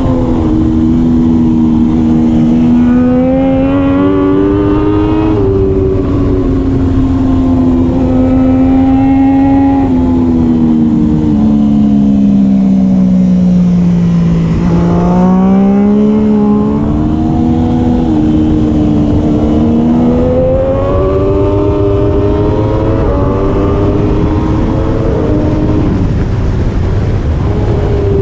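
Triumph Daytona 675R three-cylinder race engine under hard acceleration, its pitch climbing and dropping back at each upshift. About halfway it falls steadily as the bike slows for a corner, then climbs through the gears again, over a steady rush of noise.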